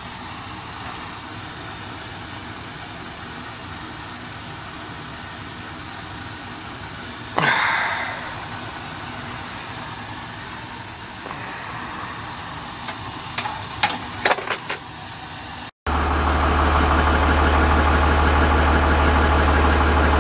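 A new 140,000 BTU gas-fired boiler running with a steady rushing noise, with one sudden loud sound about seven seconds in and a few sharp clicks later. After a cut, a truck engine idling with a steady low hum, heard from inside the cab.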